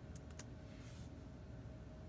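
A few last key presses on a MacBook Pro A1398 laptop keyboard, about three quick clicks in the first half-second, then only a faint steady low hum.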